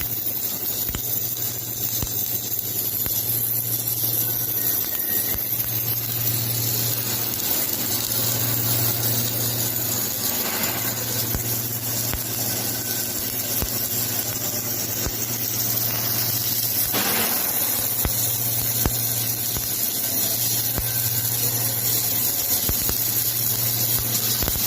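Workshop machinery running with a steady low electrical hum and a constant high hiss, with a few faint ticks.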